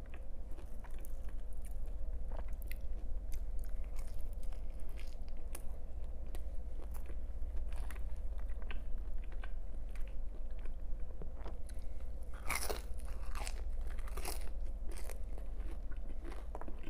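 Close-miked chewing of pizza, with many small crunches and wet clicks of the crust in the mouth. A louder run of crunches comes about three quarters of the way through. A low steady hum lies underneath.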